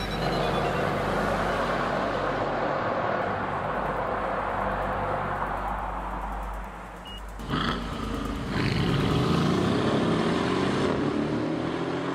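Background music track with car sound effects: a long whooshing sweep, then a sudden change about halfway through into slowly rising, revving-engine-like glides.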